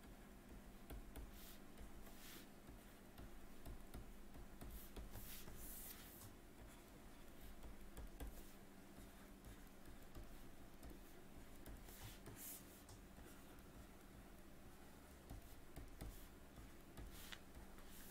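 Faint scratching of a stylus drawing short, irregular strokes on a drawing tablet, over a low steady hum.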